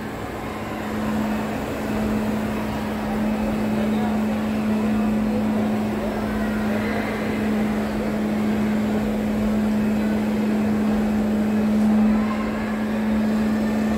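Shopping-mall ambience: a steady hum with a diffuse murmur of distant voices and footsteps.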